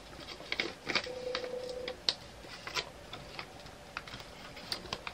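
Light, scattered clicks and taps of small plastic pillbox-style drill storage containers being handled, with a short faint steady tone about a second in.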